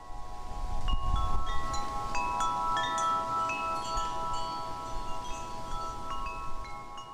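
Chimes ringing: many short tinkling notes, one after another, over a held ringing chord.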